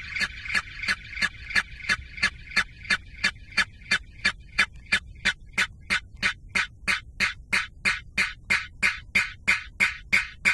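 Electronic music: a steady pulse of short, sharp hits, about three a second, with a held tone beneath it that fades away over the first couple of seconds.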